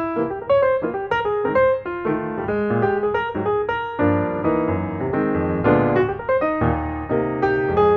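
Background piano music: a run of quick notes, with fuller chords from about halfway through.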